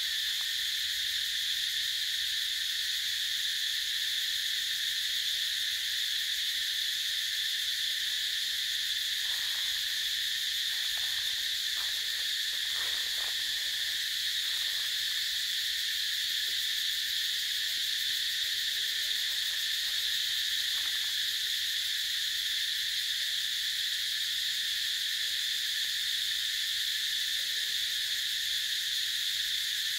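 Dense insect chorus: a steady high-pitched buzz that holds unbroken throughout.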